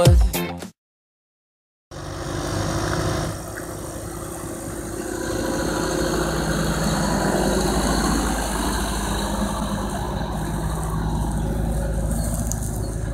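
A pop song cuts off in the first second, then after a brief silence a John Deere tractor's diesel engine is heard running steadily.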